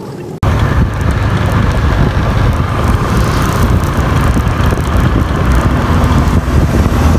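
Loud wind rushing and buffeting on the microphone while travelling, with a vehicle's engine running underneath. It cuts in abruptly about half a second in and stays steady.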